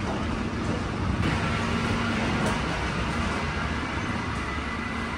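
Steady low rumble of indoor building background noise, with the hum of a moving escalator through the first half that fades about halfway through.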